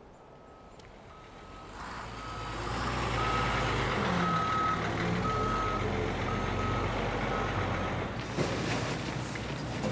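Heavy construction vehicle reversing, its backup alarm beeping about once a second over the engine, which grows louder about two seconds in; the beeping stops near the end.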